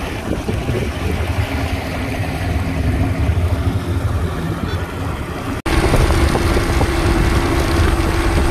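Yamaha 115 outboard motor running with the boat underway, a low rumble mixed with the rush of wind and water. It cuts off sharply about five and a half seconds in and comes back louder, with a steady hum.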